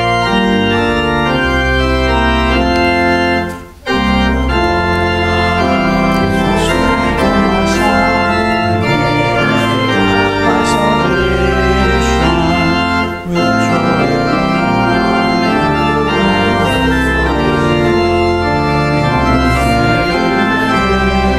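Church organ playing sustained chords that change in phrases, with brief breaks between phrases about four seconds and thirteen seconds in.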